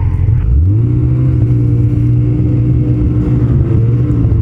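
Ski-Doo 850 two-stroke snowmobile engine speeding up: its pitch rises about half a second in, then holds at a steady cruising pitch.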